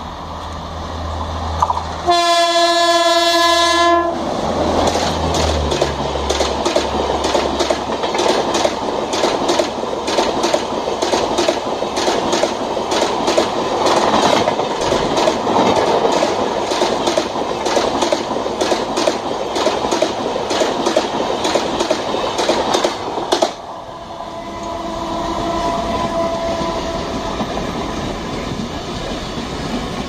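A diesel locomotive horn sounds one blast of about two seconds as a train approaches. The locomotive's engine drops in pitch as it passes, then a rake of LHB coaches runs by for about twenty seconds with a rapid clickety-clack of wheels over the rail joints. After an abrupt cut, a WDG3A diesel locomotive sounds its horn for about two seconds as it approaches.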